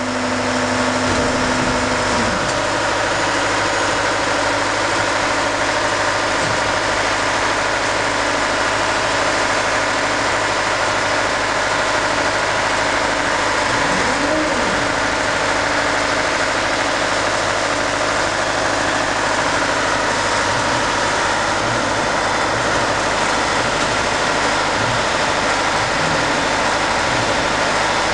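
Heavy engine idling steadily with an even, unbroken running sound.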